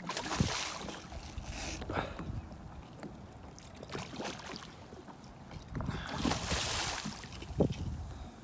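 Water splashing and sloshing around a kayak, in noisy swells a couple of seconds apart, with a short knock near the end.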